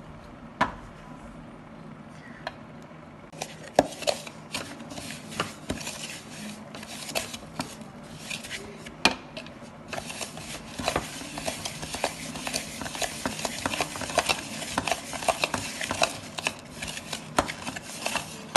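Metal spoon stirring and scraping inside a plastic blender jar, mashing powdered chocolate cream biscuits into chocolate spread. A few separate taps at first, then from a few seconds in a quick, continuous run of clinks and scrapes that gets busier about halfway through.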